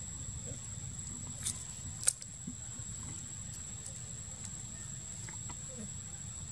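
Macaque handling sugar cane stalks: a small crack about one and a half seconds in, then a sharp louder snap about half a second later. Under it runs a steady low rumble and a constant thin high whine.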